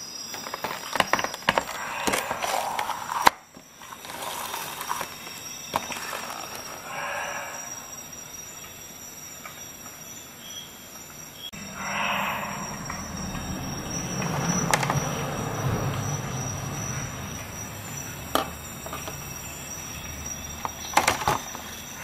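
Clear plastic blister packaging being handled and opened: irregular crinkles, scrapes and clicks of the stiff plastic, with a steady high whine underneath.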